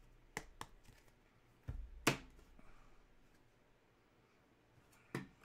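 Light handling noises from trading cards and their packaging: a few faint clicks, a soft thump with a sharper click about two seconds in, and one more click near the end.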